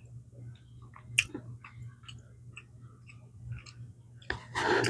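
Close-miked chewing of food, with small scattered mouth clicks and a louder burst of sound near the end, over a steady low hum.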